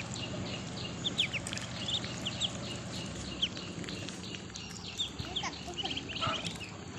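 Ducklings peeping as they feed: many short, high chirps overlapping throughout, with a few sharp clicks of bills against the metal feed dish, over a low steady hum.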